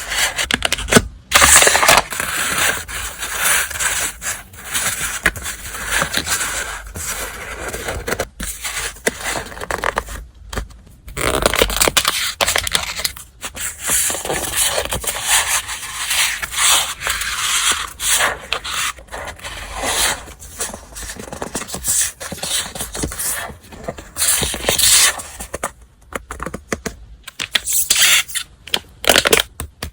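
Paper and stationery being handled close to the microphone: continuous rustling and scraping with sharp crinkles and taps, pausing briefly a few times.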